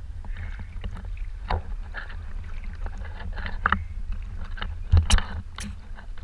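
Sea water sloshing and splashing against a camera held at the waterline, over a constant low rumble, with irregular small splashes. Two louder splashes about five seconds in.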